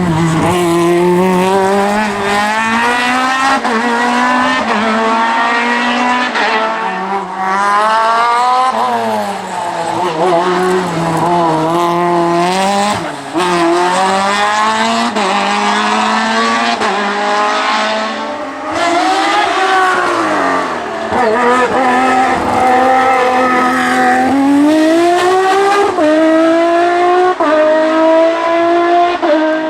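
Race car engine revving hard on a hill climb, the pitch climbing through each gear and falling back at the shifts and lifts, over and over. The sound falls away sharply at the end.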